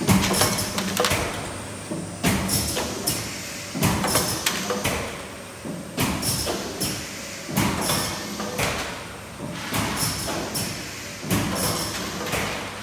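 Five-colour pad printing machine cycling automatically: pneumatic cylinders clack and hiss as the print heads stamp and the table indexes. The sharp clacks come in clusters about every two seconds.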